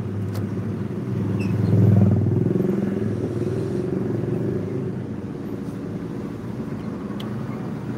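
Engine and road noise of a moving car heard from inside the cabin: a steady low rumble that swells louder about two seconds in, then settles.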